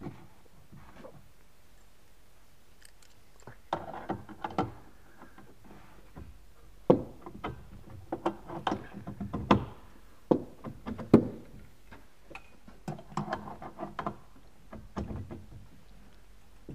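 Scattered knocks, taps and clanks as the steel slab-grabbing clamp of an AES Raptor All-In-One guardrail post is tightened against a plywood deck edge, with a few sharper strikes in the middle.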